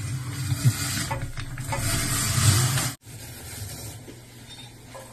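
Paper towel rubbing and rustling as it wipes a stand mixer, a rough hiss with a few clicks that grows louder, cut off suddenly about three seconds in, leaving a quieter low hum.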